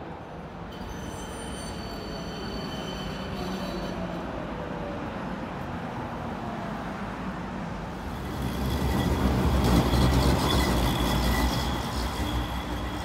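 Electric trams running on their rails, a steady rumble with a high electric motor whine in the first few seconds. From about eight seconds in, a tram passes close and the sound grows louder, with a heavy low rumble and a steady motor whine over it.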